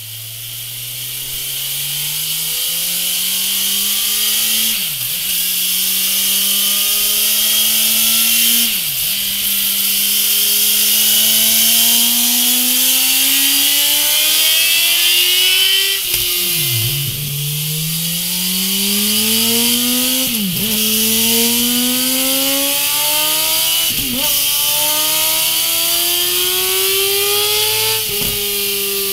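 2017 Suzuki GSX-R1000's inline-four engine pulling hard on a dynamometer, revs climbing steadily and dropping back at each gear shift, over a steady hiss. It runs first through the stock silencer, then after a sudden break about halfway through a MIVV Oval carbon-cap slip-on.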